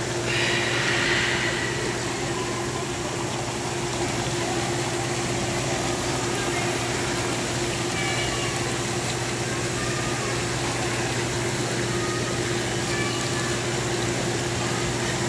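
Steady mechanical hum of the pool's water-circulation pumps running, with a brief high-pitched sound about half a second in and faint voices in the background.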